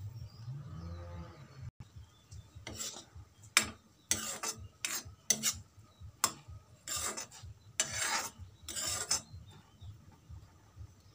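A metal spoon stirring a boiling liquid in a metal wok-style pan, scraping against the pan about ten times in quick rasping strokes over some six seconds, starting about three seconds in.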